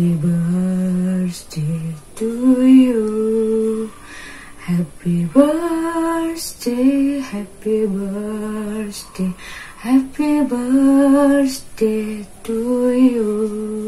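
A woman singing solo, without accompaniment, in long held notes with short breaks between phrases.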